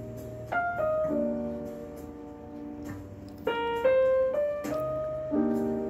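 Slow piano music: held chords and melody notes, with new notes struck every second or so.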